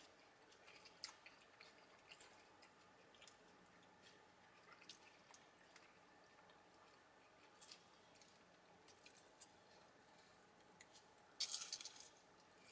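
Near silence with faint eating sounds: scattered small wet mouth clicks of chewing, and a brief louder rustle near the end.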